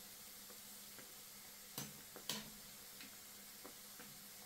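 Mandazi deep-frying in oil with a faint steady sizzle and small pops. A metal slotted spoon clicks sharply against the pan twice, about two seconds in, as the pieces are turned.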